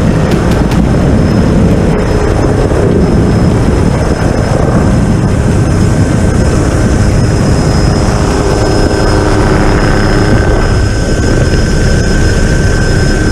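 AH-6i Little Bird light helicopter running loud: a beating rotor rumble under a steady high turbine whine.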